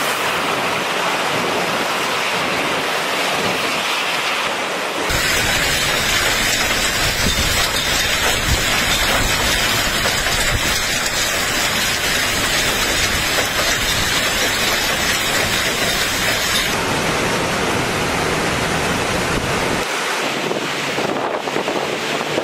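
Steady storm noise of wind, rain and rushing water. Heavy low rumble from wind buffeting the microphone fills the middle stretch. The sound changes abruptly about 5 seconds in and again about 17 seconds in.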